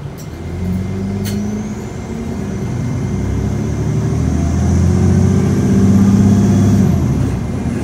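Onboard a 2009 Nova Bus LFS city bus under way: the engine and drivetrain grow louder over several seconds as the bus pulls, with a thin high whine rising in pitch alongside, then ease near the end. A short sharp knock about a second in.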